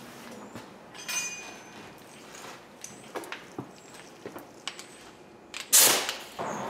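Faint metal clinks and ticks, one ringing briefly about a second in, then a short loud burst of hiss just before the end.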